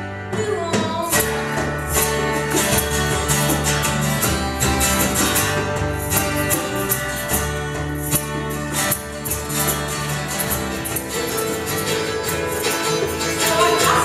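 Live acoustic band playing: strummed acoustic guitars with singing.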